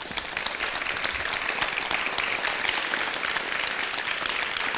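Audience applauding, many hands clapping in a dense, even stream.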